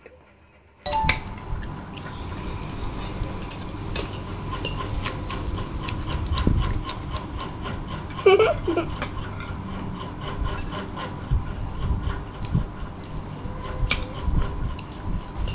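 Close-up eating sounds: chewing with many small, quick clicks and scrapes, about three a second at times, over a steady low hiss.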